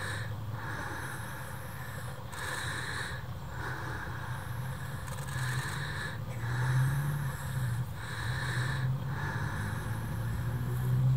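A low motor hum, like a distant vehicle engine, swelling about halfway through and again near the end, under a steady higher hiss that drops out briefly every second or two.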